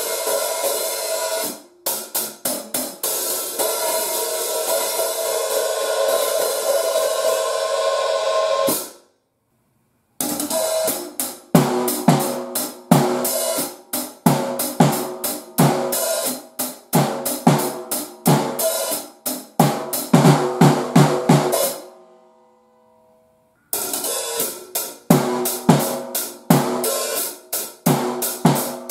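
Paiste 2002 14-inch hi-hats being played in demo takes: first a sustained, washy open sound, then a groove of quick hi-hat strokes over snare and kick drum. The playing stops abruptly twice for a second or so of silence between takes.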